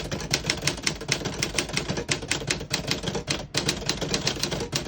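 Keys of a 1950 Smith-Corona Sterling manual portable typewriter striking in quick succession, about six keystrokes a second, with a brief pause about three and a half seconds in.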